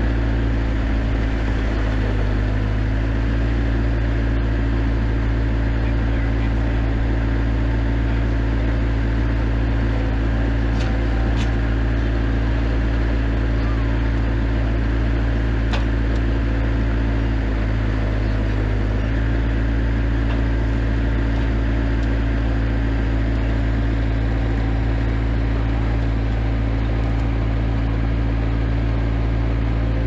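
Bobcat skid steer engine running steadily under the operator's control, a loud low drone whose pitch sags briefly twice, once about two seconds in and again a little past halfway, as the hydraulics take a load. A few faint clicks sound around the middle.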